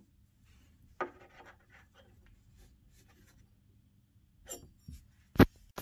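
A metal hinge plate being handled against the chipboard panel of an Ikea PAX wardrobe: light rubbing and scraping with a few small clicks, the sharpest click near the end.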